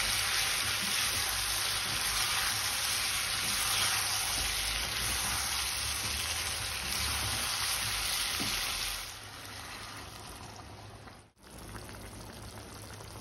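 Potato momos frying with onion, tomato and chillies in a wok, a steady sizzle as a wooden spatula stirs them. About nine seconds in, the sizzle drops to a quieter hiss and briefly cuts out near the end.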